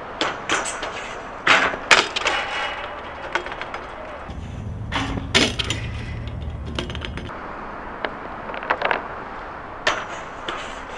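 BMX bike hitting a steel stair handrail and crashing down: a string of sharp clanks and thuds from the bike and rider striking rail, concrete and ground, spread over several separate attempts.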